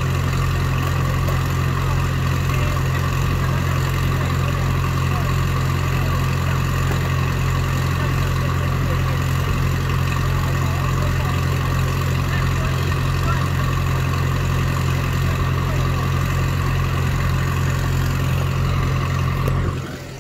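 Engine of a tracked log splitter running at a steady speed. The sound is briefly muffled near the end.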